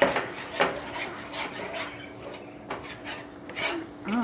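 A utensil scraping and stirring scrambled eggs around a frying pan in short, irregular strokes, about two a second, over a faint steady hum.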